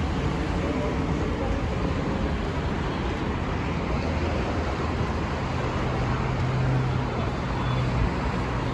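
Steady city street traffic noise from passing cars. A low engine hum rises over it for a few seconds past the middle.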